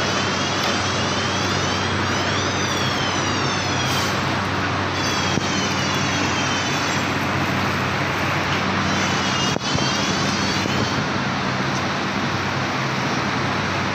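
Paper straw machinery running: a steady loud noise with a constant low hum, overlaid several times by whines that rise and fall in pitch, and one sharp click about two-thirds through.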